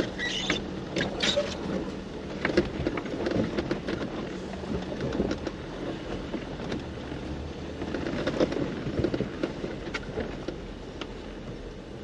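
Off-road vehicle engine running at low speed as it crawls a rocky trail, with scattered crunches and knocks of tyres on rock and gravel.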